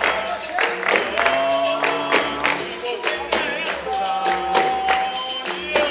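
Capoeira music: a tambourine beating a quick, steady rhythm under singing, with a pulsing bass line.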